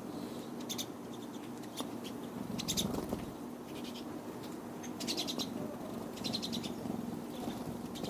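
Pine siskins giving short, high twittering calls in little clusters every second or two, with a brief low rumble about three seconds in.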